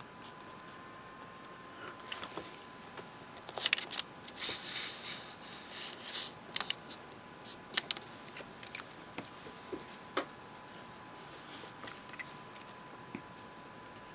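Fingers handling the paper of a spiral-bound notebook: scattered crinkles, rustles and small taps, busiest in the first half and thinning out toward the end.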